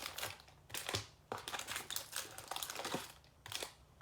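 Wrapped trading-card packs rustling and crinkling in the hand as they are lifted out of a cardboard hobby box, in irregular spells with short pauses.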